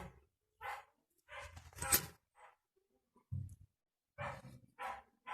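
A dog barking: about eight short barks at irregular intervals.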